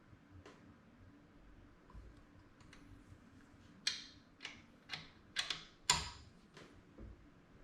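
Creaking from around a road bike's handlebar: a run of six short, sharp creaks and clicks over about two and a half seconds, loudest near the end. This is the handlebar-area creak that is the fault being chased.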